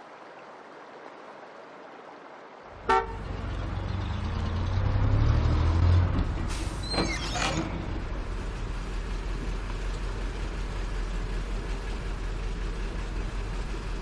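A vehicle horn gives a short toot about three seconds in. A bus engine then runs with a steady low rumble, heard from inside the bus and loudest a few seconds later. There is a brief high-pitched squeal around seven seconds in.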